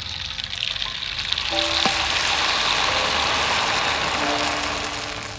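Thin dried rice noodles deep-frying in a wok of hot oil as they puff up: a loud, dense sizzle that swells just after the start and eases off near the end.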